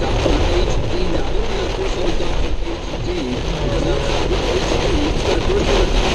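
Steady road and engine rumble inside a car driving through a heavy storm, with rain noise on top. A muffled, indistinct voice wavers underneath.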